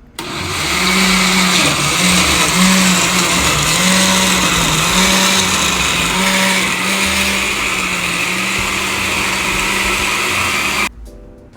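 Countertop blender running, puréeing charred tomatillos, chilies and onion with water into a green salsa. Its steady motor hum wavers slightly in pitch as the load shifts, then cuts off suddenly near the end.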